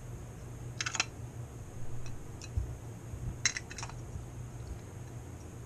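Small metal herb grinder's parts clicking together as they are handled: two quick clusters of sharp metallic clicks, about a second in and again near the middle.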